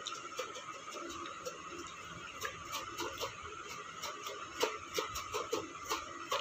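Irregular light clicks and taps of a steel spoon and ginger pieces in a steel bowl as powder is shaken in and mixed, over a steady background hum.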